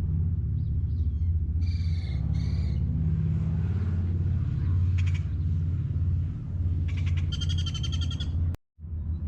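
Steady low drone of a car driving, heard from inside the cabin, with two short chirps about two seconds in and a rapid pulsing trill near the end.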